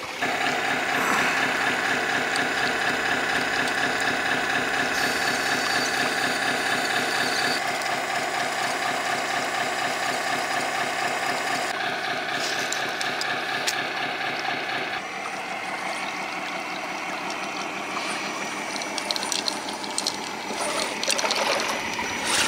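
Steady mechanical whirring from an RC semi truck, its smoke kit running, over running creek water. The sound shifts abruptly several times.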